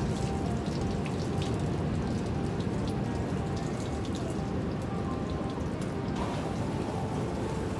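Steady splattering of water with many scattered drips and droplet ticks on wet pavement and a vehicle body.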